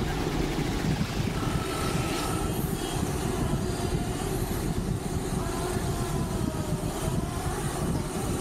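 Steady, gusty wind rumble on the microphone of a bicycle moving at riding speed, mixed with road and tyre noise.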